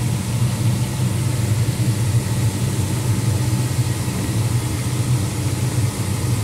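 Pickup truck's engine idling steadily, a deep even hum heard from inside the cab.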